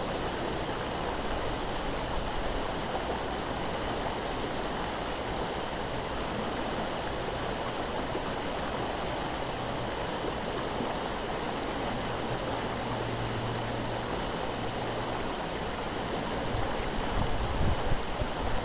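Shallow river water rushing and rippling steadily past, with louder, uneven low rumbling near the end.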